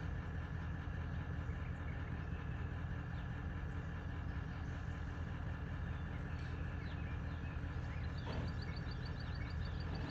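Hunting truck's engine idling steadily, a low even hum.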